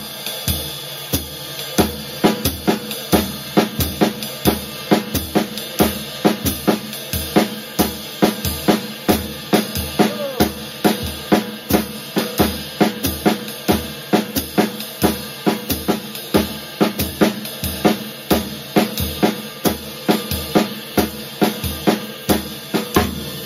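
Drum kit playing a swing beat. The ride cymbal keeps the swing pattern, the bass drum plays on every beat and the hi-hat on two and four. The snare plays on the middle partial of the triplet, two bars starting on the downbeat and two starting on the upbeat, looped with a little snare double.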